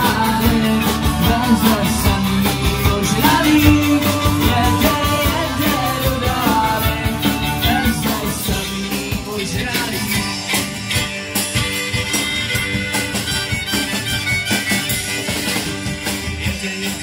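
Upbeat band music with a steady beat, guitar and a singing voice, the voice mostly in the first half.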